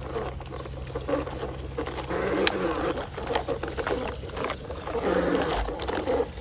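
A plastic toy truck being dragged on a string through shallow muddy water: irregular sloshing and scraping with scattered sharp clicks.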